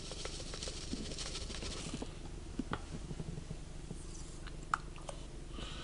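A plastic scoop scraping and tapping as powder is scooped and tipped into a plastic shaker cup, with scattered light clicks, the sharpest a little before the end, over a steady low hum.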